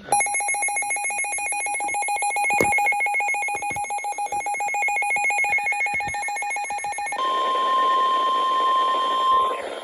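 Weather radio alert tones for a tornado warning. First comes a rapidly pulsing electronic alarm beep for about seven seconds. Then a single steady tone takes over, the NOAA Weather Radio 1050 Hz warning alarm tone that signals an imminent warning broadcast.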